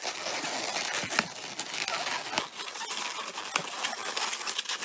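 Latex 260Q modelling balloons rubbing, squeaking and crinkling as they are handled and twisted together, with many small clicks and squeaks.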